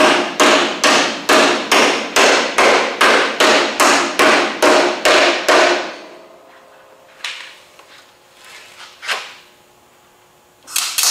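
MIG welder stitch-welding thin car-body sheet metal: a rapid, regular run of short arc bursts, about two and a half a second, for roughly six seconds. After a few scattered clicks, a continuous crackling weld starts near the end.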